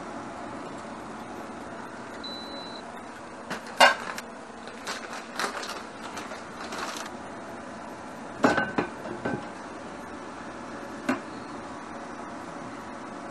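Cooking and handling sounds over a steady hiss: a short high beep, then a sharp knock of cookware about four seconds in. Next comes the crinkle of a plastic bag as dried bonito flakes are shaken out, then a few clinks of metal pots and utensils and one last knock.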